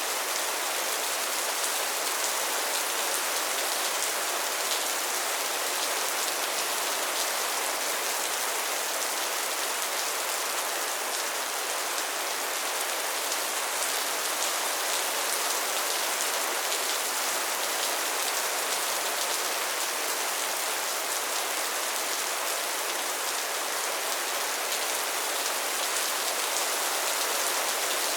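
Steady rainfall: an even hiss of rain with fine patter of drops hitting a surface.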